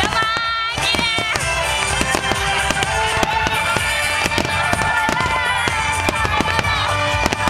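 Dense barrage of aerial firework shells bursting in rapid, overlapping bangs, with music playing throughout.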